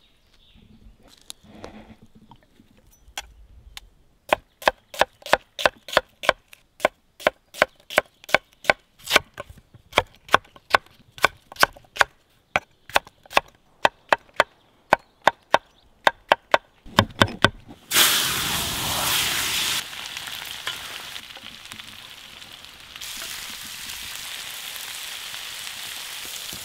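A knife chopping button mushrooms on a wooden cutting board, a steady run of sharp strokes about three a second. Then a loud sizzle starts suddenly as food hits hot oil, and potatoes and mushrooms keep frying in the pan.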